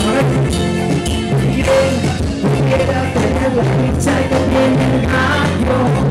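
Dance band playing music with a singer over a steady beat.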